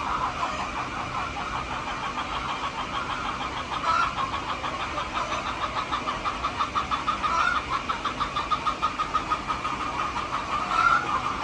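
Chickens clucking in rapid runs, with a short rising call breaking through about every three and a half seconds.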